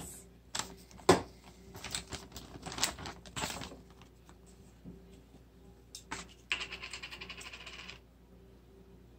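Clicks and light knocks of small containers and a bowl being handled on a tabletop, the sharpest about a second in. Later comes a rapid rattling that lasts about a second and a half.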